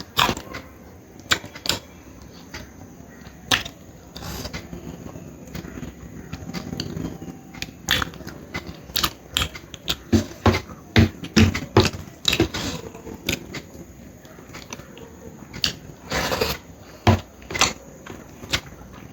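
A person eating: close chewing and mouth sounds with many irregular sharp clicks and smacks, busiest in the middle stretch.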